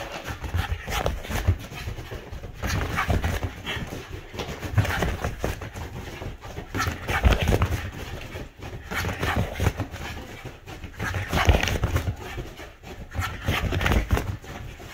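A corgi galloping laps over a leather sofa and the floor: quick runs of paw thumps and scrabbling that come in waves about every couple of seconds, loudest as she passes close.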